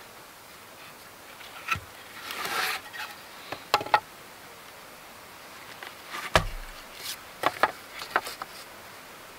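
Irregular knocks, clicks and rustling of hands working with wood, with a heavier thump about six seconds in.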